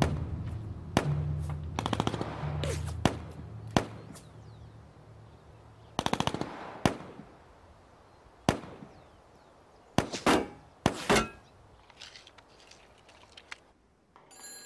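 Gunfire from a street battle: scattered single shots and short rapid machine-gun bursts, the bursts about six and ten seconds in. A low music bed fades out in the first few seconds.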